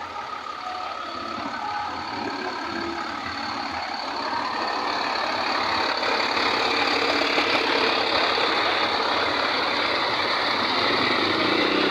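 Several buses' basuri horns sounding together in a dense, overlapping blare of steady tones, building up louder over the first few seconds and then holding.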